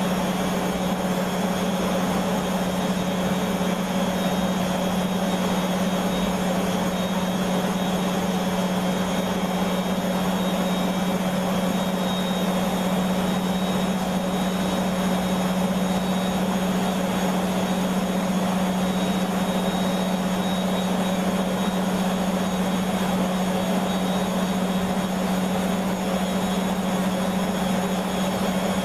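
Beko washing machine spinning its drum at a steady speed: a constant motor hum with a steady rushing noise, unchanging throughout.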